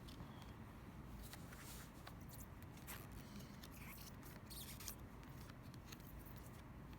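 Trading cards being leafed through by hand: faint, scattered soft ticks and swishes of card stock sliding over card.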